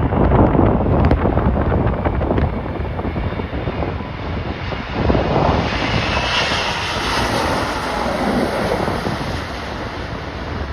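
Jet airliner landing, its engine noise swelling about halfway through and peaking later before easing off. Gusty wind buffets the microphone with a heavy low rumble throughout.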